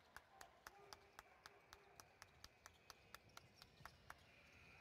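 Steady rhythmic hand clapping, about four claps a second, stopping shortly after four seconds in.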